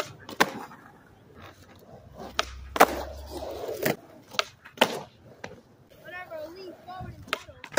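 Skateboard with a 90s-shaped wooden deck being ridden on concrete: wheels rolling and the board clacking and slapping down in a string of sharp hits, the loudest about three seconds in.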